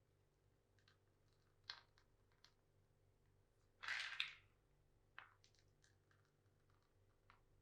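Faint handling sounds of piping madeleine batter into a metal mould: a few light clicks and taps, and one brief crinkle of a plastic piping bag being squeezed about four seconds in.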